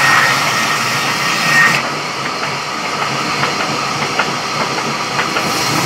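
Sawmill saw machinery running steadily, with scattered light knocks. A brief high whine comes just before the sound turns duller about two seconds in.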